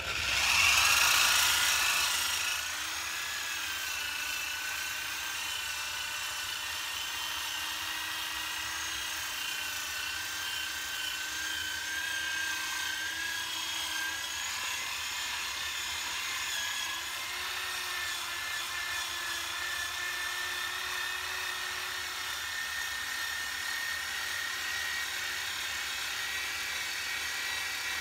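Corded electric drill spinning an abrasive strip disc against the inside of a rusty cast iron kettle, grinding off rust and rough casting. Louder for the first two seconds or so, then a steady motor whine with the disc scraping on the iron.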